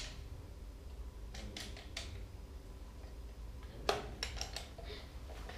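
Metal clicks and clinks of a short-track speed skate blade being set and clamped in a sharpening jig: a few light clicks, then a louder knock about four seconds in followed by several quick clicks.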